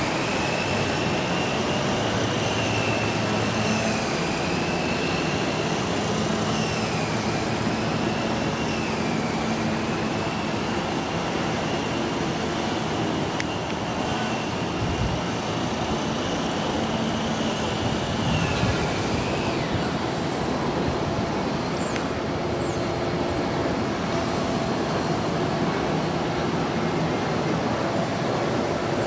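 A 1960 MGA's engine, an upgraded 1800 four-cylinder on a single Weber carburettor, running steadily. A high whine over it wavers and falls away about two-thirds of the way through.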